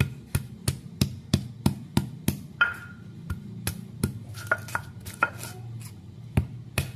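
Stone pestle (ulekan) pounding garlic, chillies and aromatic ginger in a stone cobek mortar: sharp stone-on-stone knocks about three a second, with a brief pause near the end before the knocking resumes.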